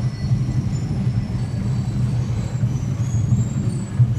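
Engines of several small motorcycles running at low speed, a steady low drone.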